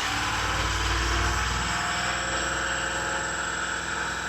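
Ford 7.3 L gasoline V8 held at a raised, steady speed of about 2000 RPM after revving up, on an engine with a slight misfire on cylinder number 1 that sets no trouble code.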